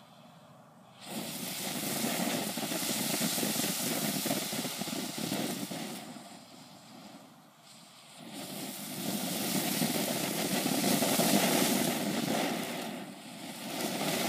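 Tropical Fish Fountain firework spraying sparks with a steady hiss. The hiss starts about a second in, fades for a couple of seconds in the middle, comes back stronger, and dips briefly again near the end.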